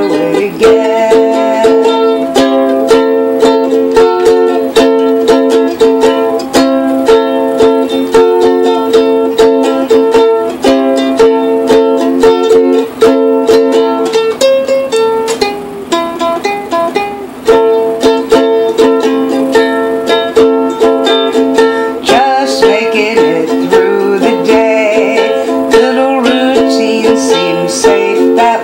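Music: a strummed acoustic string instrument, likely a ukulele, plays a steady rhythm through an instrumental passage with no singing.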